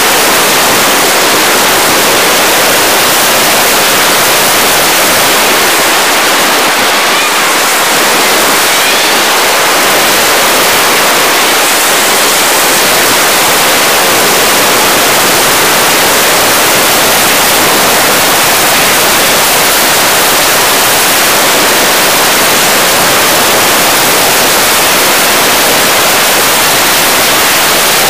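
Loud, steady hiss like static from a cheap action camera's recording, even across the high frequencies with little bass and no change in loudness.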